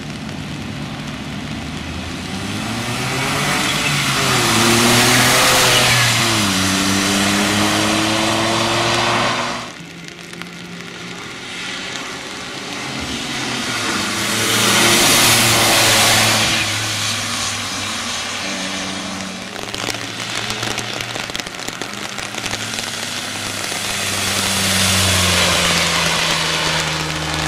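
The racing Smart Roadster's small turbocharged three-cylinder engine revs hard and shifts up through the gears as it passes, its pitch climbing and dropping back at each change, with a hiss of tyre spray on the wet road. It goes by three times, each pass swelling to loudest and then fading.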